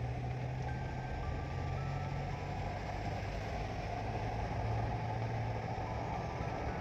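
Steady low drone of a car's engine and tyres, heard from inside the moving car as it drives through a road tunnel.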